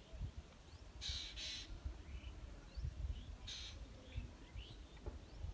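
A bird calling: two calls in quick succession about a second in and another about halfway through, with faint chirps from small birds and a low rumble underneath.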